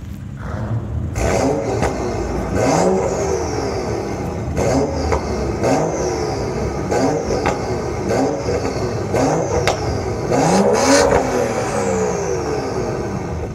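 A BMW turbocharged 3.0-litre inline-six with catless downpipe and M Performance Exhaust, revved in a series of about nine quick throttle blips. Each rev rises and falls in pitch, and sharp cracks come at several of the revs.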